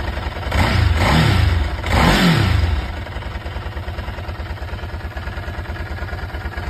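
2003 Ducati 999's Testastretta L-twin engine revved twice, each blip rising and falling in pitch. About three seconds in it settles to a steady idle with an even pulsing beat.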